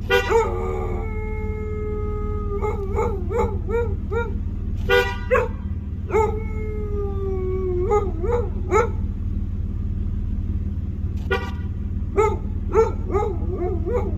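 A shepsky (husky–German shepherd mix) howling in answer to short car horn toots. A toot comes near the start, about five seconds in and about eleven seconds in. Each is followed by a long, slightly falling howl or a string of short yowls, over a steady low rumble.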